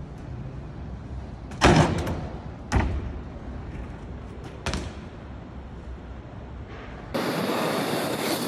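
Three sharp thuds, a second or two apart, from a BMX bike hitting the pavement. Near the end a louder, even rushing noise starts abruptly.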